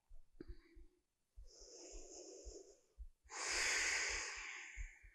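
A woman breathing slowly and audibly: a softer breath in about a second and a half in, then a longer, louder breath out about three seconds in.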